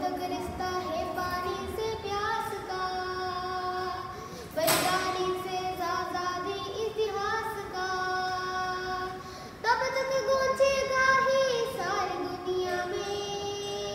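A boy singing a Hindi patriotic song solo, in long held notes that glide between pitches, phrase after phrase.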